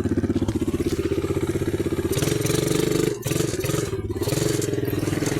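ATV engine running with a fast, even exhaust pulse; it picks up about two seconds in, with two brief dips a second apart.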